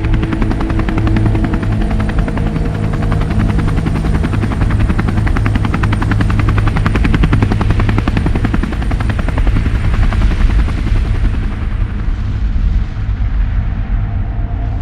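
Rapid, evenly spaced chopping pulses over a deep rumble, a mechanical sound effect; the pulses are strongest around the middle.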